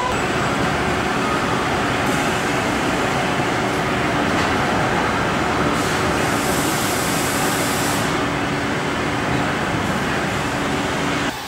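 Steady machinery noise of a car assembly line, a continuous hiss with a low hum, with a brighter hiss for about two seconds past the middle.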